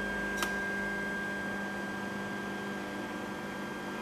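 Wanhao Duplicator 10 3D printer's stepper motors whining steadily as the build plate rises during homing, with one short click about half a second in.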